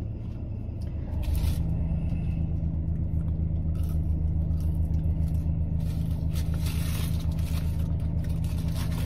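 A parked car's engine idling, heard inside the cabin: a steady low hum with an even pulse that grows louder about a second in, when a steady low tone joins it.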